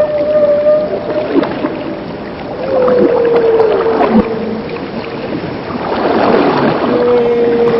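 Whale calls: long moaning tones, three of them, each held and sliding downward at the end, over a steady wash of underwater water noise.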